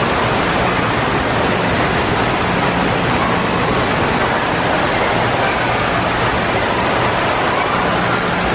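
Steady loud rush of running water, even and unbroken, with a faint low hum underneath.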